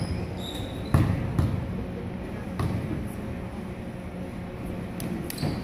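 A basketball bouncing a few times on a hardwood gym floor, with single irregularly spaced thuds over a low background murmur in the gym, as a free-throw shooter dribbles before the shot.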